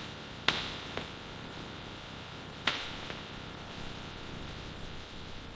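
A few short, sharp knocks over a steady background hiss, the loudest about half a second in and another near the three-second mark.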